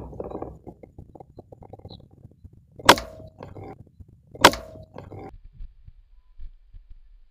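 Two sharp shots from an air rifle, about a second and a half apart, each with a short metallic ring after the crack.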